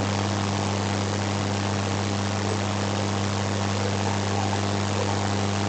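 A steady low hum with an even hiss behind it, unchanging throughout, with no other sound.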